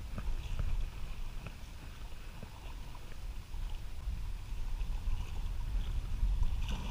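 Wind rumbling on the microphone and sea water lapping against the rocks of a breakwater, a little louder in the second half.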